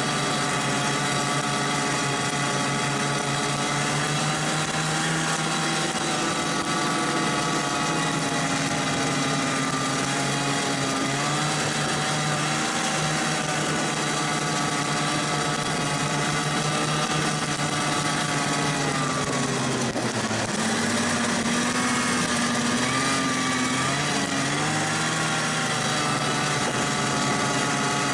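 Vintage snowmobile engine running under way, heard from the sled itself. Its pitch holds fairly steady with small rises and dips as the throttle changes, drops about two-thirds of the way in, then wavers up and down.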